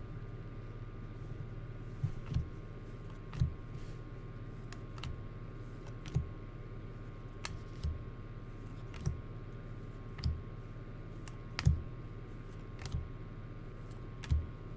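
Baseball trading cards handled one by one as a pack is gone through: light, sharp clicks and taps roughly once a second over a steady electrical hum.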